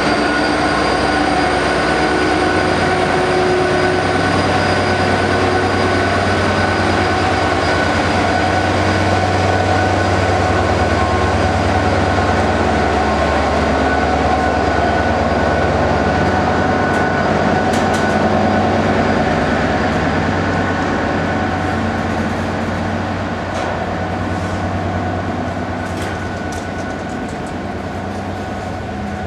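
Class 66 diesel locomotive's two-stroke V12 engine running as the locomotive passes slowly, a deep steady drone that weakens a little over halfway through. Its train's hopper wagons then rumble by with a few sharp clicks.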